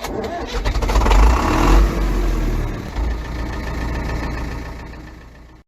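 Engine running with a deep low rumble, loudest about one to two seconds in, then fading away and cutting off abruptly near the end.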